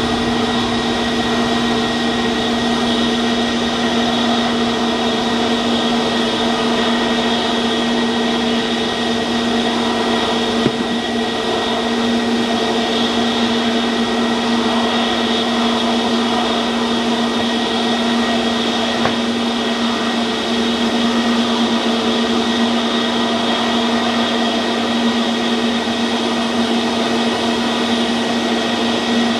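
Jet airliner engines running steadily close by: an even whining drone with several held tones and no rise or fall in pitch.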